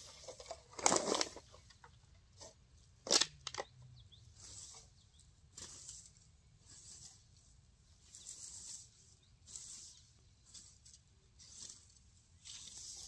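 A garden rake scraping and dragging through dry grass and weeds in repeated strokes, about one a second. Two louder sharp knocks come in the first few seconds.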